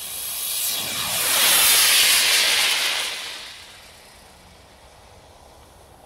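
Homemade E12 sugar-fuel rocket motor igniting and burning as the rocket lifts off: a loud hiss that swells over the first two seconds, then fades away about three to four seconds in.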